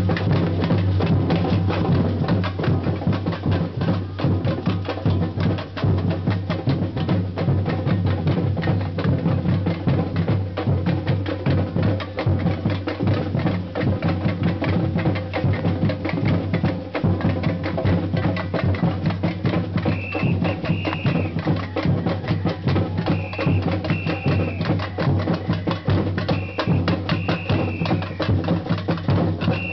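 Samba bateria playing: a street samba percussion band drumming a dense, driving rhythm over deep bass drums. Short high tones come in groups from about two-thirds of the way through.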